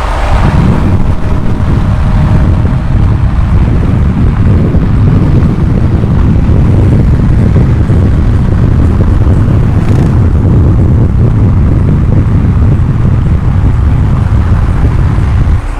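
Car on the move: a loud, steady low rumble of engine and road noise with wind buffeting the microphone, fading away at the very end.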